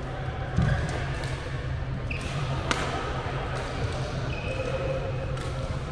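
Badminton rackets hitting a shuttlecock in a fast rally: several sharp cracks, with a heavier thump about half a second in. Short squeaks of court shoes on the floor sit over a steady low hum.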